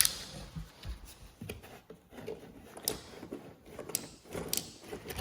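Scattered light clicks and soft knocks of hands handling things at close range, with about four brief sharp clicks spread through the stretch.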